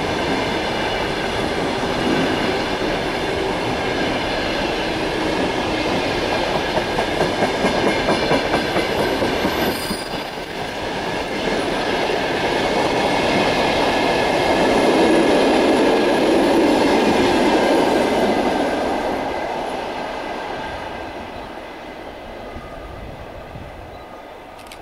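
A long rake of passenger coaches rolls past on the track, its wheels clattering over the rail joints, with a steady high-pitched ringing above the rumble. The sound fades near the end as the last coach moves away.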